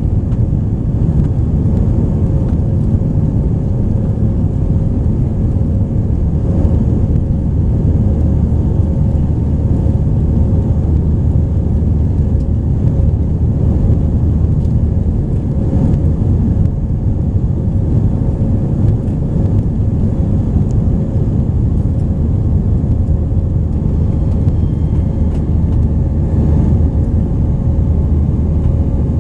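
Airbus A320-232's IAE V2500 turbofan engines at climb power, heard inside the cabin over the wing: a steady low rumble with a faint steady hum above it.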